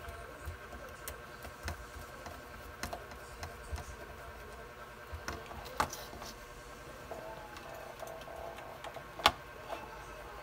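Scattered clicks and taps of hands handling small electronics: a DC barrel plug, a boost converter board, wires and a plastic meter box on a cutting mat. The loudest sharp click comes about nine seconds in.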